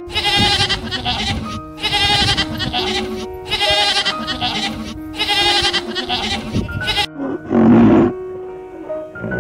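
Goats bleating, four long wavering bleats one after another over background music, followed near the end by one short, louder, lower-pitched animal call.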